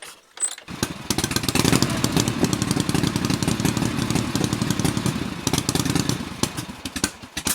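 Motorcycle engine running with a rapid, pulsing beat after a few clicks at the start. It fades out near the end.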